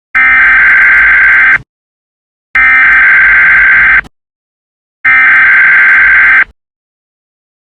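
Emergency Alert System SAME header: three loud, harsh digital data bursts, each about a second and a half long with a second of silence between them, the coded screech that opens an emergency alert.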